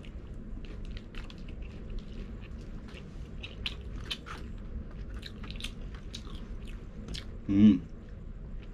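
Close mouth sounds of a man eating rice and fried chicken: wet chewing with many small clicks and smacks. About 7.5 s in comes one brief, loud vocal sound.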